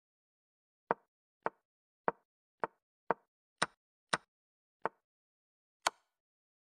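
Chess.com app move sounds: nine short clicks, one for each move played, about one every half second. The sixth and seventh are sharper, brighter clicks for the captures exd4 and Qxd4, and the last, also brighter, is the check Qe3+.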